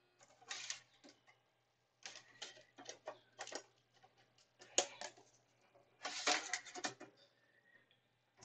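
Several short bursts of plastic clicking and rattling from a DVD and its case being handled and the disc being loaded into a computer's disc drive.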